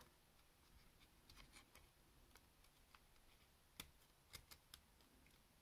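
Near silence broken by scattered faint small clicks and taps, a few clearer ones past the middle: fingers and fingernails working a ribbon cable into its connector on a Sony MZ-N707 MiniDisc Walkman's circuit board.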